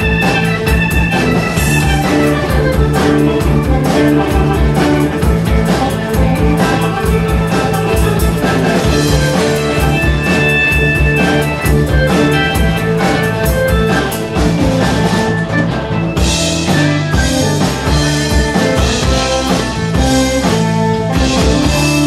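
Live band playing an instrumental passage: two electric guitars over a drum kit, recorded on a mobile phone. From about three-quarters of the way through, the cymbals crash harder.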